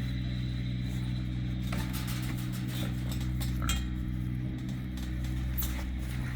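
An engine idling steadily, with a few sharp metallic clinks from a T-post puller being worked on steel fence posts.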